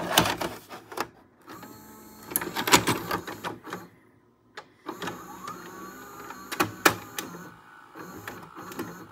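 Philips SV2000 VCR with a Funai mechanism taking in and threading a tape after power-on: motor whirring with repeated mechanical clicks and clunks, and a motor tone rising in pitch about five seconds in.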